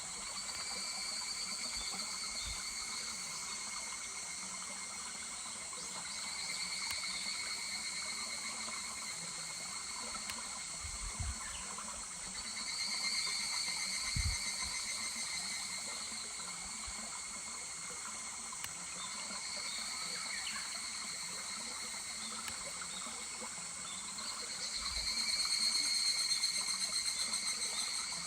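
Higurashi (evening cicadas) calling in rapidly pulsed, ringing phrases that swell and fade every few seconds, with the loudest phrase near the end, over the steady sound of a babbling mountain stream.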